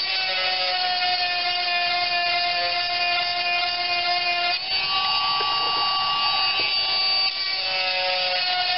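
12-volt electric chainsaw sharpener, its small motor whining steadily as the grinding stone files the chain's teeth. The whine changes briefly about halfway through and again near the end.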